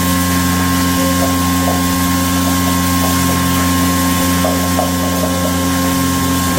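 A motor-driven machine running steadily with a constant hum, over small faint knocks and rattles.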